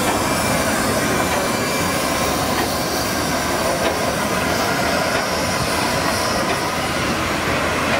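4-8-2 steam locomotive rolling slowly past at close range: a steady hiss and rumble, with a few faint clicks of wheels on the rails.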